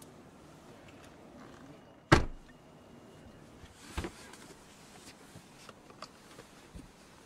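Rear door of a Mercedes-Maybach S600 shutting with one solid thud about two seconds in, followed by a smaller knock a couple of seconds later and a few light clicks.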